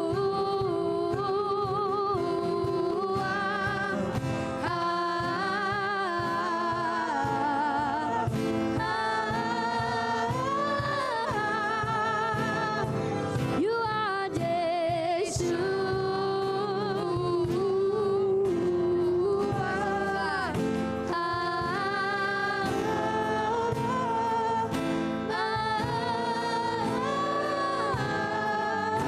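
Live gospel worship song: sung notes with vibrato over guitar accompaniment.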